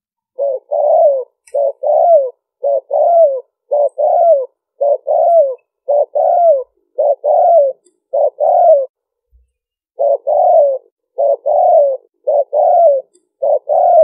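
Spotted dove cooing: a steady run of two-part coos about one a second, each a short note followed by a longer note that falls in pitch, with a pause of about a second near the middle.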